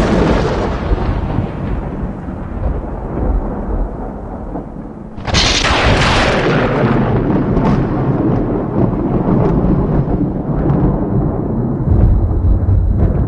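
Thunder: a clap already rolling away into rumble, then a second sharp crack about five seconds in that rolls on as a long low rumble, swelling again near the end.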